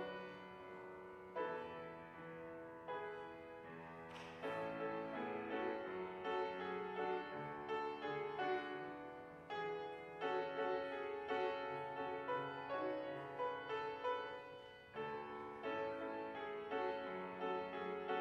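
Solo piano playing chords, each struck and left to fade before the next, with no singing.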